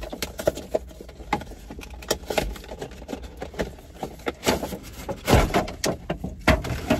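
Cardboard action-figure box being handled and opened: an irregular run of clicks, scrapes and rustles of packaging. The louder knocks come from about four and a half seconds in, as the box is pulled open.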